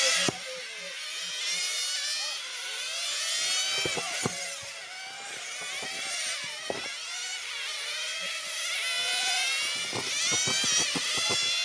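Several 1/10-scale nitro touring cars' small glow-fuel engines, high-pitched and overlapping, rising and falling in pitch as the cars accelerate and brake around the track. A few short sharp clicks are heard along with them.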